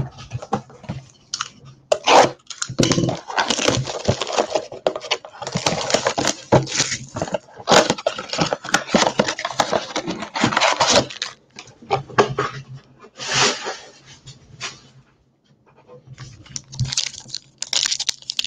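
A trading-card blaster box being torn open and its foil packs pulled out: a long run of ripping, crinkling wrapper and cardboard rustling with sharp crackles. It pauses briefly about three quarters of the way in, then the rustling starts again.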